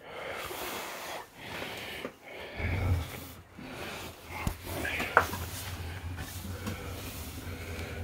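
Furnace running: a steady low hum comes in about two and a half seconds in and holds, under irregular breathy, hissy noises, with one sharp click about five seconds in.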